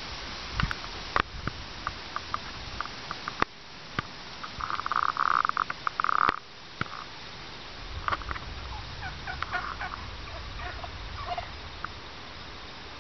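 Wild turkeys calling: short, sharp calls scattered through, a loud rapid run of calls lasting over a second about five seconds in, then a looser series of softer calls.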